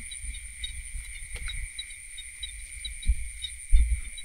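Steady night chorus of crickets and other insects, a high continuous trill with a faster pulsing chirp over it. Low thumps of handling noise come about three seconds in and louder near the end.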